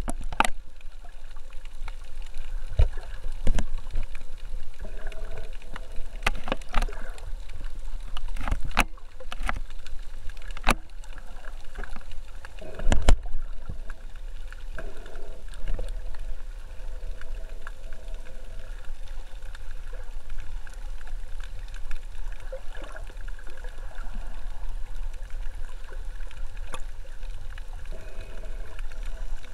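Muffled underwater noise picked up by a submerged camera: a steady low rumble of moving water with scattered sharp clicks and knocks, several in the first half and the loudest about 13 seconds in.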